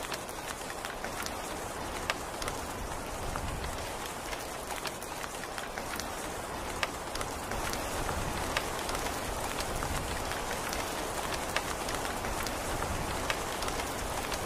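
Steady rain: an even hiss of falling rain with many individual drops ticking sharply at random through it.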